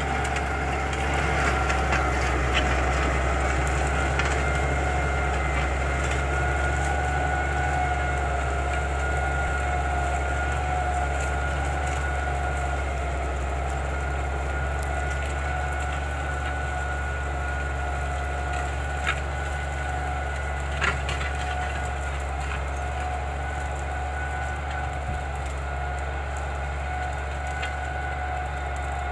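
Valtra 1780 tractor's diesel engine running steadily under load while pulling a disc harrow through the soil: a constant low drone with a steady whine above it, slowly fading as the tractor moves away. Two sharp knocks sound close together about two-thirds of the way through.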